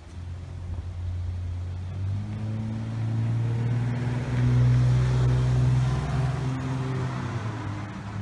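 A motor or engine running, a steady low hum that grows louder a couple of seconds in and stays strong.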